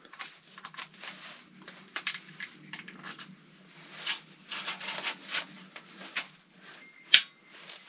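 Small clicks, taps and rustling as hands work at a camo shotgun, with one sharper click near the end.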